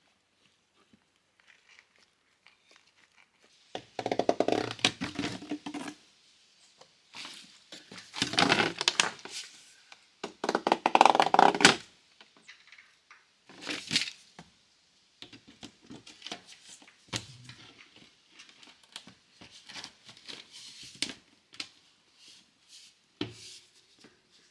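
Gritty scraping and crunching of sand-and-gravel concrete mix being worked, in three longer bursts in the first half, followed by scattered short scrapes and knocks.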